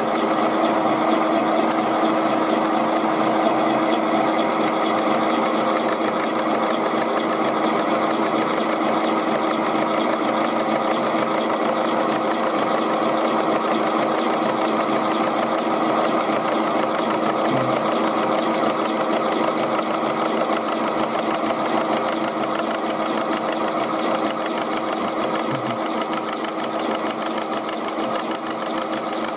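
Homemade milling machine driven by a washing-machine motor, running steadily with its cutter milling through the thin tin lid of a can. A continuous even hum with a couple of steady tones, easing off slightly near the end.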